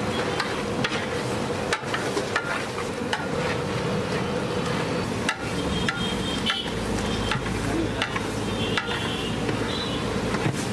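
A long metal ladle stirs a huge aluminium pot of simmering, sizzling biryani masala gravy, scraping and knocking against the pot with irregular clicks.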